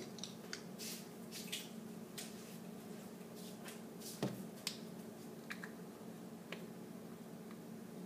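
Faint scattered clicks and short crinkly rustles of a plastic honey bottle being opened and handled, over a low steady hum.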